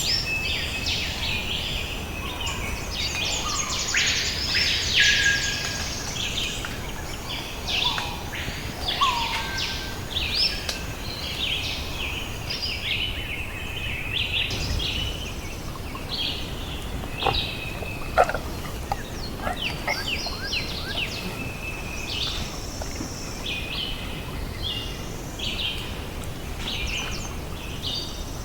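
Dense chorus of many birds chirping, trilling and whistling over a steady low background hiss, with a few short sharp clicks about two-thirds of the way through.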